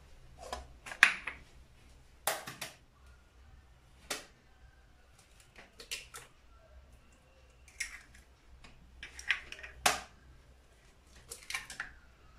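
Eggs being tapped and cracked against the rim of a bowl, with the shells pulled apart: short, sharp taps and cracks in small clusters every second or two.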